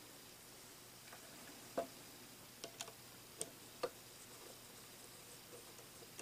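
Scattered light clicks and ticks, about five over a couple of seconds in the middle, from small plug and wire parts being handled while an AC plug is wired up.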